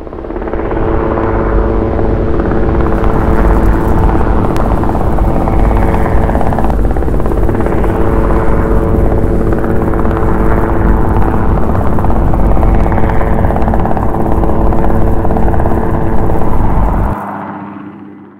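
Helicopter hovering low, its rotor and engine running steady and loud with a heavy deep rumble. It fades in at the start; near the end the rumble drops out suddenly and the rest fades away.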